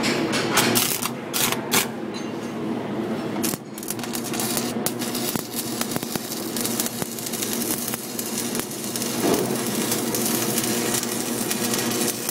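Electric arc welding: the arc gives a dense, steady crackle, with a few sharper knocks in the first two seconds.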